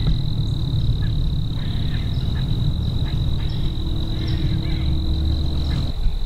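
Steady, high-pitched insect drone, like a cricket or katydid chorus, over a loud low rumble on the microphone; the rumble stops abruptly about six seconds in.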